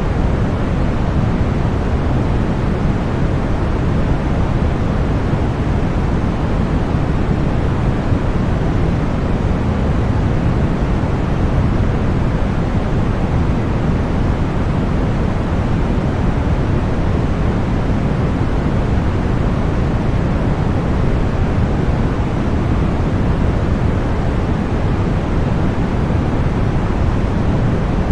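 Continuous white noise: a steady, unchanging rushing hiss, fuller in the low end than in the highs.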